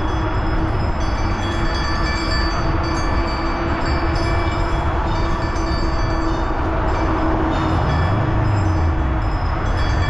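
Steady wind and road rumble from riding over a rough, broken road surface, with rattling and a steady hum that fades out about three-quarters of the way through. A hum rises and falls near the end.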